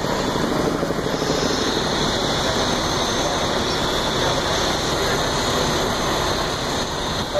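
Steady engine drone running without let-up, with no change in pitch or level.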